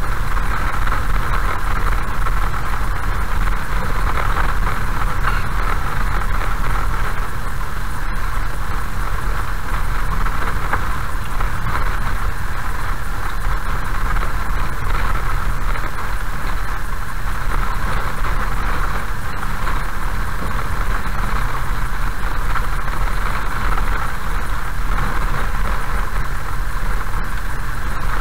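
A car driving slowly on a gravel road, heard from inside: a steady mix of engine hum and tyre-on-gravel noise.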